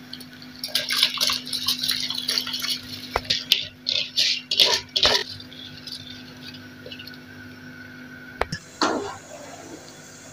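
Rice poured from a metal bowl into a pot of boiling water, splashing and sloshing for about four seconds, with a couple of sharp metal knocks on the pot as it is stirred with a metal spoon, over a steady low hum.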